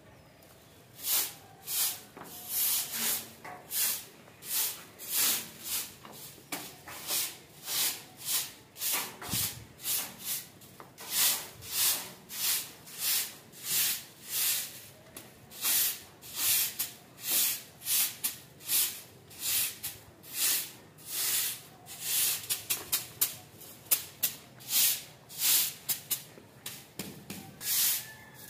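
A hand broom of thin stiff sticks sweeping a concrete floor: a long run of short swishes, about one to two a second, coming quicker for a stretch near the end.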